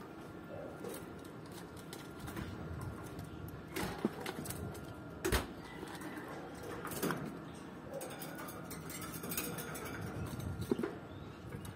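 Birds moving about in a wire aviary: a starling's hops and wing flutters on the perches and cage floor, with scattered knocks on the wire and perches, the sharpest about five seconds in, and a few short calls.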